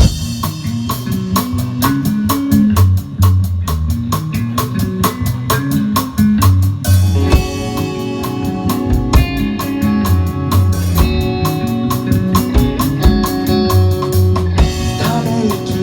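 Instrumental band intro: a drum kit keeping a steady, quick beat under bass and guitar, with sustained guitar chords coming in about seven seconds in.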